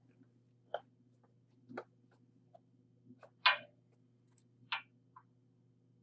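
A few light knocks and clicks, roughly one a second and irregular, the loudest a little past the middle, over a faint steady hum.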